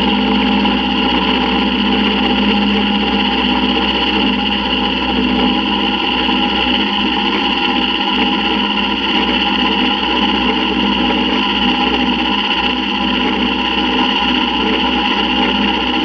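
Vertical milling machine cutting the inside opening of a T6 turbo exhaust flange with an end mill: a steady, unbroken drone of the spindle and cutter working through the metal.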